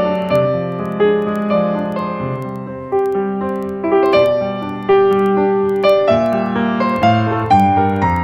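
Background piano music: a slow, gentle melody of single notes, each struck and fading away.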